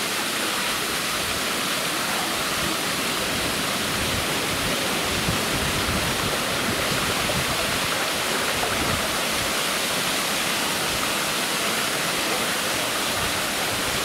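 Steady rushing and splashing of a waterfall pouring down a rock face into a shallow pool.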